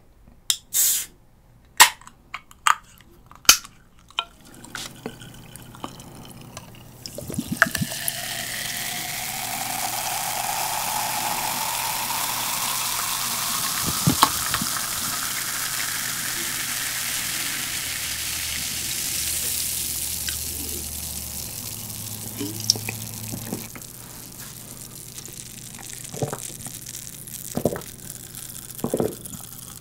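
Coca-Cola can opened with a few sharp clicks of the pull tab. Cola is then poured into a tall glass, fizzing loudly, with a tone that rises in pitch as the glass fills. Near the end come a few short gulps as it is drunk.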